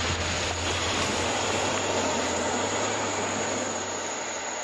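A felled tree crashing down through the canopy: a long rushing rumble of breaking branches and leaves that slowly fades near the end.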